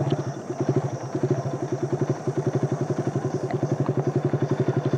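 Small motor scooter's engine running steadily as it is ridden, with an even, rapid putter of about a dozen beats a second.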